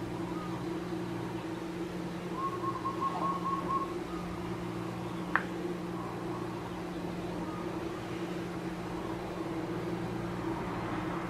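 A steady low mechanical hum, with a short warbling whistle-like tone about two and a half seconds in and a single sharp click just past five seconds.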